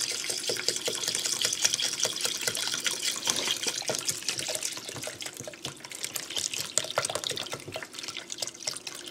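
Chicken broth pouring from a carton into a pot of rinsed rice, a splashing, gurgling pour that thins to scattered splashes in the second half.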